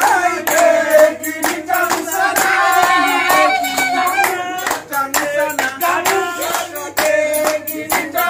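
A group singing a celebration song with rhythmic hand clapping.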